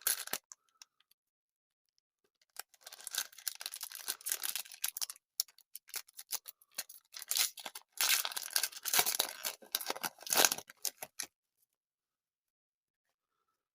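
Sticker pack wrapper being torn open and crinkled by hand: bursts of crackling and tearing for several seconds, then stopping.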